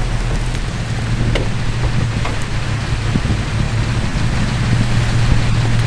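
A vehicle engine running steadily in the rain, with a few short sharp ticks.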